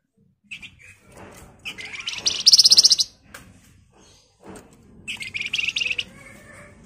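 A caged flamboyan babbler gives two rapid, buzzy rattling trills, the first about a second and a half in and loudest, the second about five seconds in, with a few short call notes at the start.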